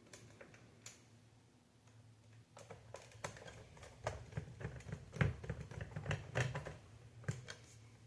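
Light clicks and taps of a magnetized screwdriver and small screws being worked into an Xbox Series S console's casing, a scattered run of them starting about two and a half seconds in and easing off near the end.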